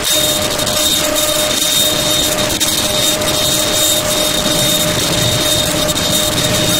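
Harsh electronic noise music: a dense, steady wall of hiss and crackle with two thin sustained tones, one mid-pitched and one high whine, held throughout.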